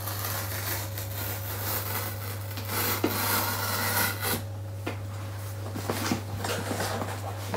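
A sealed MacBook Air cardboard box being unsealed and opened: rubbing and scraping of the packaging, with a few light clicks, over a steady low hum.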